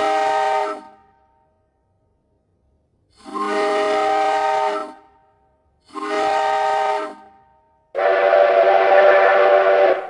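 Steam locomotive whistle sounding four separate blasts: a short one at the start, then one of about a second and a half, one of about a second, and a longer, louder one of about two seconds near the end, with silence between them.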